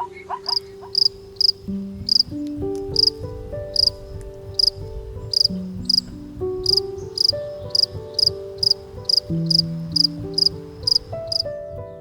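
Insect chirping in short, evenly spaced high chirps, about two a second, like a cricket. Background music with slow, held notes plays underneath.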